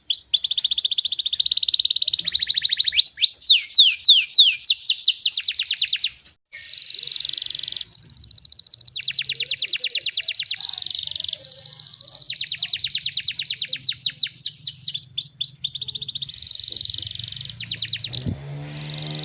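Domestic canary singing long runs of fast, tightly packed trills, rapid repeated notes with short pauses between phrases and a brief break just after six seconds. About a second before the end a low hum joins in under the song.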